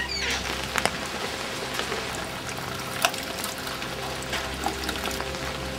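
Steady rain falling on wet brick paving, with many sharp drips and splashes through it and rainwater running from a downpipe into a tub of water.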